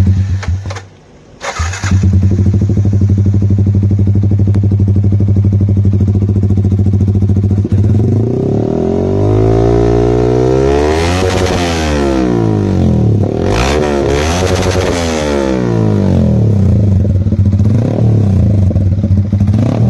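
Yamaha MT-15's single-cylinder engine through an aftermarket SC Project slip-on silencer, catching after a brief first start attempt and settling to a steady idle. It is then revved twice, each rev rising and falling back smoothly, before it returns to idle.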